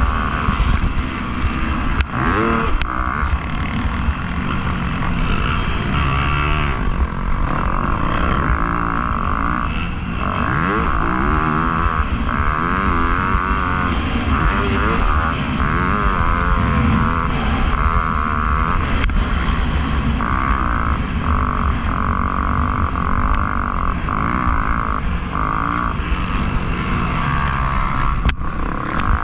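Motocross dirt bike engine revving hard and backing off again and again as it is raced, its pitch rising and falling with each burst of throttle.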